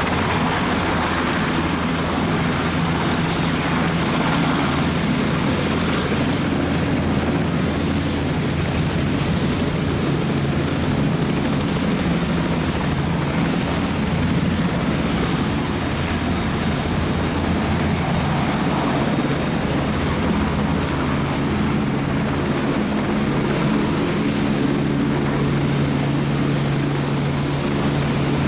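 Sikorsky S-92 helicopter hovering low as it comes in to land: the steady sound of its four-blade main rotor and twin turboshaft engines, with a thin high turbine whine.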